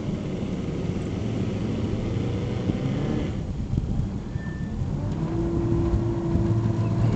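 A boat's motor running steadily at low speed. A steady higher hum joins it a little after five seconds in.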